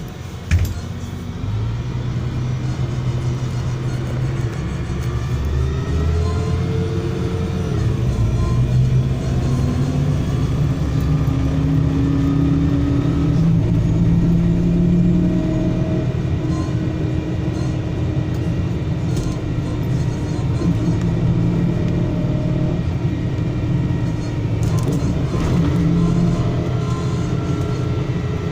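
MAZ-103 city bus heard from inside the cabin, pulling away and accelerating, its engine note rising in pitch and shifting between gears. There are two sharp knocks right at the start.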